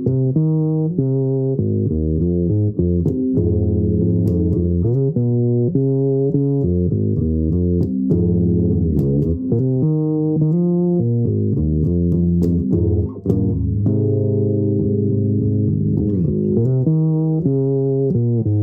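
Fretless electric bass guitar played fingerstyle: a slow melodic line of sustained plucked notes, with several notes sliding up or down in pitch into the next.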